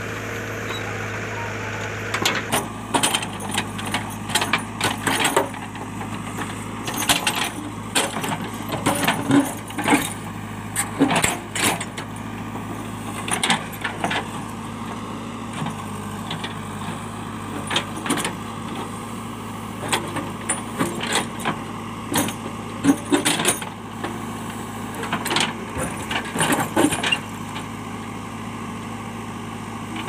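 JCB backhoe loader's diesel engine running steadily while its backhoe bucket digs into rocky soil, with repeated clanks and scrapes of stones against the steel bucket. The clanks start about two seconds in and come in clusters, thinning toward the end.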